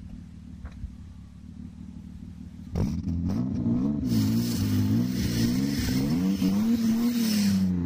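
BMW E39 528i's inline-six exhaust, running through a Magnaflow glasspack resonator with the muffler deleted: a low idle rumble, then about three seconds in the engine is revved, its pitch wavering up and down and climbing higher before dropping near the end, with a loud hiss over the top.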